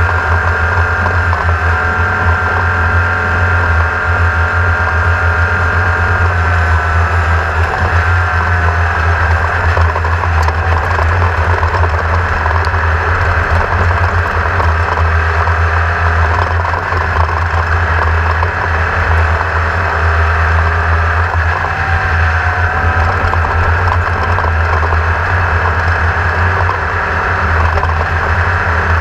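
A machine running steadily: a constant low hum under a high whine that dips in pitch twice.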